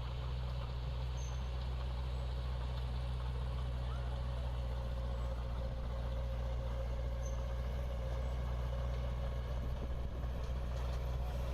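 Diesel engine of heavy earth-moving machinery running steadily at a constant speed, a low hum with a steady higher whine over it.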